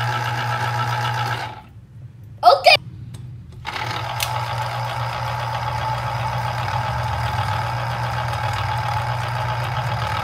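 Electric citrus juicer's motor humming steadily as an orange half is pressed onto its spinning reamer. The motor stops about a second and a half in, a short high-pitched voice sound comes about a second later, and the motor starts again about two seconds after that and runs on.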